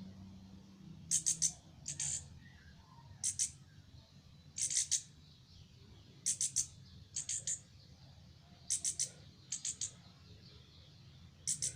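A bird chirping: short, sharp high-pitched chirps in quick clusters of two to four, repeating about every second or so.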